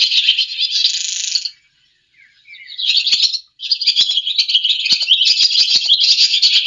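Swallows twittering: a dense run of short, high-pitched chirps that pauses for about a second shortly after the start, then carries on.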